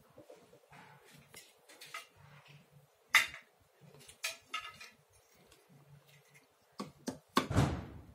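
Metal lock hardware handled on a workbench: a sharp click about three seconds in, a few lighter knocks after it, then a louder clatter near the end as parts are moved about.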